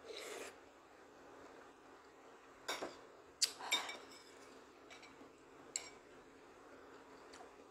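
Metal spoon scraping and clinking against a glass bowl: a short scrape at the start, a cluster of sharp clinks about three seconds in, and a few single clinks later.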